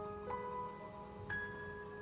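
Soft background music of slow, ringing struck notes, a new note about every second, each fading gently.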